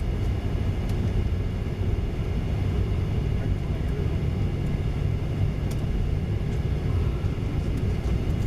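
Boeing 737-900ER's CFM56-7B turbofan engines heard from inside the passenger cabin: a steady low rumble with faint high fan tones above it.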